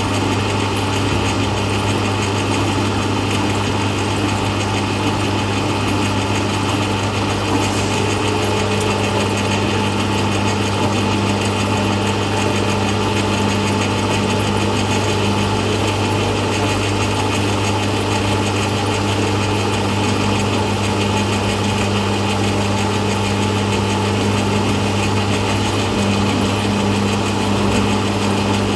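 Electric noodle-cutting machine running steadily: an even motor hum under a constant mechanical whirr, with no change in speed.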